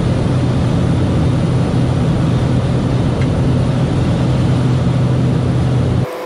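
Cessna 208 Caravan's turboprop engine and propeller droning steadily, heard from inside the cockpit in flight. The drone cuts off suddenly about six seconds in, leaving a quieter steady hum.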